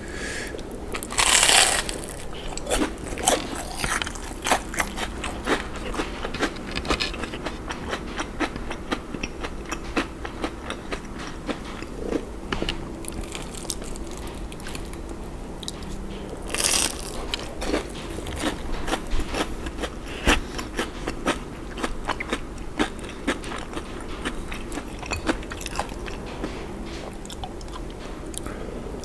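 Crunchy bites into a crispy, crumb-coated deep-fried shrimp donut: a loud crunch about a second and a half in and another just past halfway, with crisp crunchy chewing between and after them.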